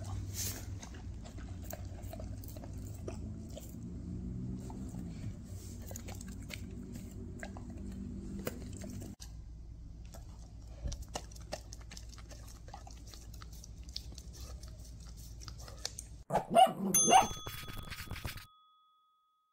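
A Bernese mountain dog licking and smacking at an ice cream on a stick: many small wet mouth clicks over a low hum. Near the end a short loud end-screen jingle with ringing chime tones cuts in, then silence.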